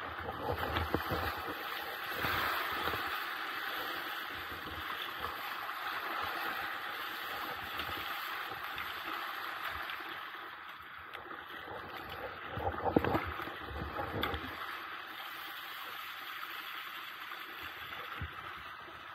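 Rough water rushing and splashing along a sea kayak's hull and paddle as it surfs a tide race. There is a louder surge of splashing and rumble about two-thirds of the way through.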